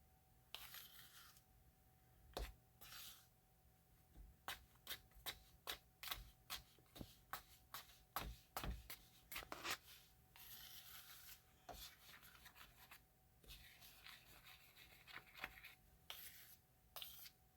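A utensil stirring dry flour, salt, baking soda and spice in a mixing bowl: faint quick taps against the bowl for several seconds, then softer scraping and rubbing.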